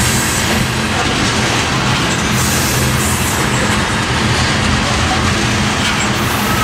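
Tank cars of a Norfolk Southern crude oil train rolling past, a steady, unbroken rumble of steel wheels on the rails.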